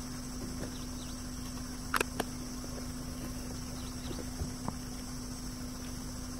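Steady outdoor background of a low hum and a high, even insect drone, with a sharp click about two seconds in and a few faint ticks later.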